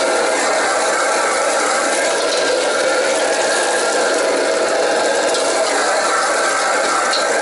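Steady roar of a commercial gas wok burner under a wok of fried rice, with a few faint scrapes of a steel ladle against the wok.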